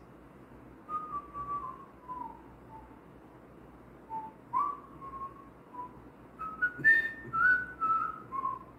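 A man whistling a slow tune through pursed lips, one note at a time with short gaps between notes. The notes are louder and higher near the end.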